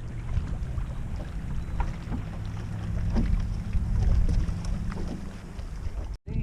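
Strong wind buffeting the microphone on an open fishing boat: a heavy, continuous low rumble, with faint small knocks and splashes above it.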